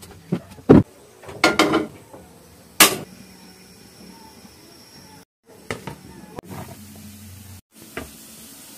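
Kitchen cookware and utensils knocking and clinking, a scattering of sharp knocks with a short burst of rattling about a second and a half in.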